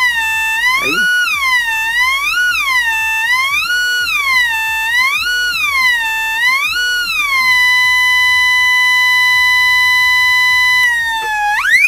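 Test tone from an audio signal injector played loud through a small LM386 mono amplifier's speaker. The buzzy tone swings up and down in pitch about every second and a half, is held steady about two-thirds of the way in, then dips and sweeps sharply up before cutting off at the end.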